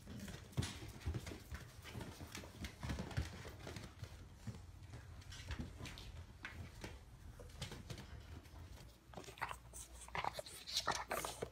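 Several puppies play-fighting: irregular scuffles, knocks and small puppy sounds as they tussle, with a steady low hum underneath.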